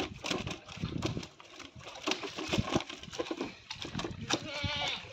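Live fish handled and flapping in a plastic basket on a scale: irregular slaps and knocks. A short wavering call is heard near the end.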